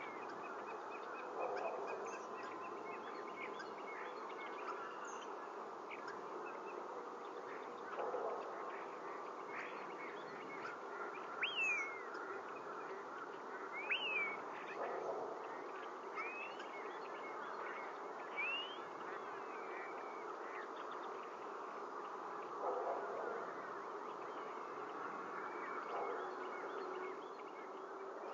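Ospreys calling: a handful of short, high, downward-sliding whistled chirps, scattered through, over a steady buzzing hiss.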